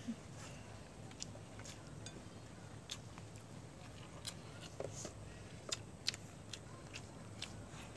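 Eating noises: chewing of stir-fried noodles and scattered sharp clicks of chopsticks against ceramic plates at irregular times, over a faint steady low hum.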